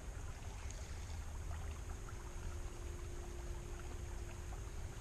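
Outdoor background sound: a steady low rumble under a faint even hiss, with no distinct event.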